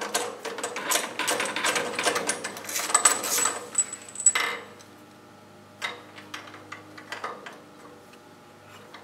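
Ratchet socket wrench clicking rapidly as it loosens the spark plug on a log splitter's small engine; about four and a half seconds in the clicking stops, leaving a few light knocks.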